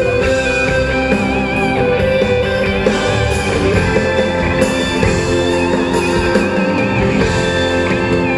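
Live rock band playing through a concert PA, heard from the audience in a large hall. A sustained lead line wavers with vibrato over steady guitar, bass and drums.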